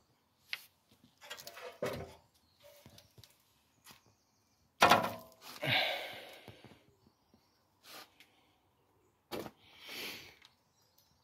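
Scattered knocks and clunks of tools and parts being handled, with short rustling noises in between; the loudest is a sharp knock about five seconds in. No grinder is running.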